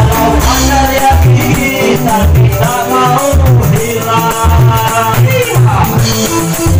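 Female singer's voice in long, wavering melodic lines over loud band music with a steady low beat.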